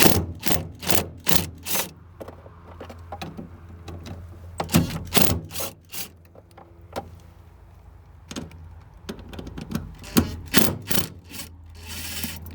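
Small fuel-pump-access screws being worked loose with a tool: three runs of short, sharp clicks and knocks about half a second apart, with a brief rushing noise near the end.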